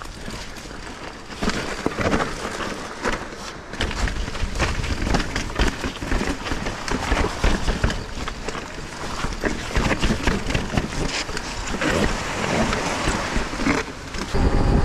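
Mountain bike rattling and clattering down a rough, stepped dirt trail, its tyres knocking over the steps and stones, with wind buffeting the microphone; the rumble grows heavier about four seconds in.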